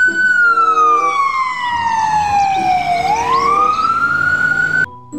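Ambulance siren wailing. Its pitch falls slowly for about three seconds, rises again, and then cuts off abruptly near the end.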